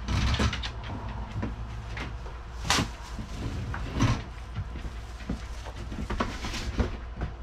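Small objects and packaging being handled on a work surface: scattered clicks and rustles, with two sharper knocks near the middle.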